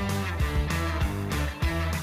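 Background music: a guitar-led song with bass and a steady beat.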